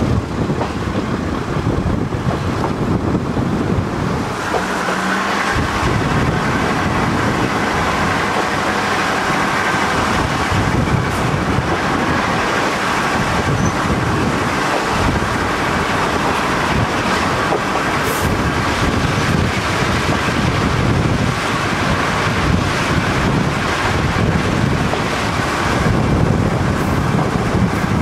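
Kominato Railway KiHa 200 diesel railcar running at speed, heard from inside the car: a steady drone of engine and wheels on the rails, with a faint steady whine joining about four seconds in.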